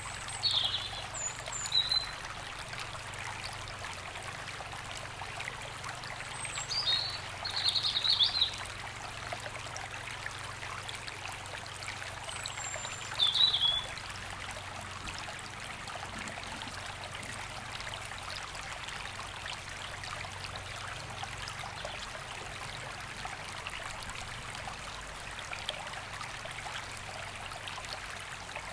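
River flowing steadily. A bird calls in short high chirps three times over the first fourteen seconds or so, and after that only the water is heard.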